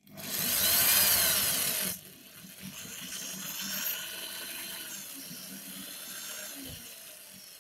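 Electric drill boring a small hole through the solder-filled metal end cap of an old glass fuse held in a vise. It runs loudest for the first two seconds, then keeps turning more quietly with a wavering pitch until shortly before the end. The soft metal drills easily.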